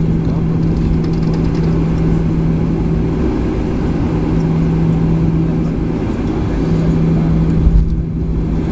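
Steady cabin drone of a Boeing 737-800 taxiing, its CFM56 jet engines running at low taxi power under a constant low hum, heard from inside the cabin. A brief low thump comes near the end.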